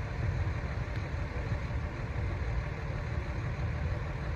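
Steady low rumble of boat engines running on the water.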